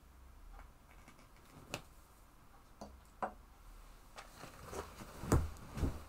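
Scattered small clicks and taps of objects being handled, then two soft thumps near the end as a person sits back into a cushioned sofa.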